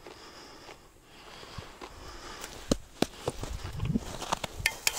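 Scattered sharp clicks and knocks over a faint background hiss, growing busier from about halfway through.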